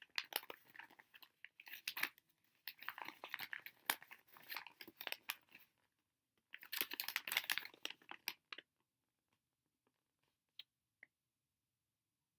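Toy packaging being handled and opened by hand: irregular crinkling and crackling that stops about eight seconds in, with two faint clicks near the end.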